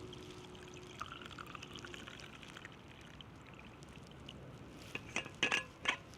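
Coffee being poured, a faint trickle of liquid, followed by several sharp clicks near the end.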